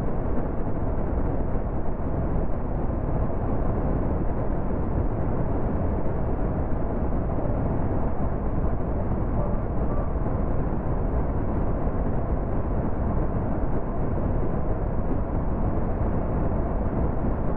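A car cruising at motorway speed: a steady rumble of tyre and wind noise, even throughout.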